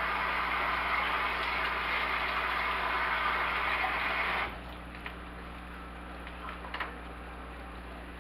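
Hush puppies deep-frying in a small saucepan of hot oil: a loud, steady sizzle that cuts off suddenly a little over halfway through. After it, a fainter bed with a few light clicks.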